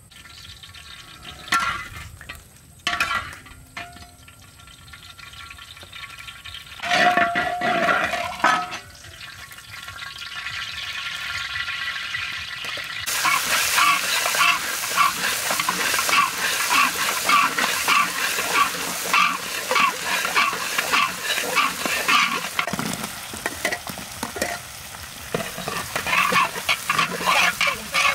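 Oil sizzling hard in a large iron wok with chili powder, shallots and garlic frying, while a metal spatula scrapes and stirs against the wok; the frying starts suddenly about halfway through. Before that there are a few separate knocks and a louder clatter.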